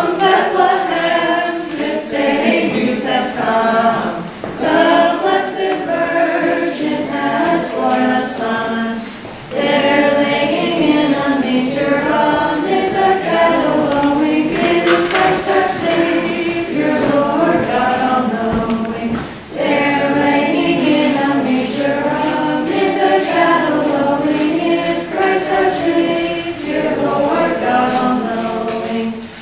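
A group of children and teenagers singing together unaccompanied, a song sung in phrases with brief breaths between them.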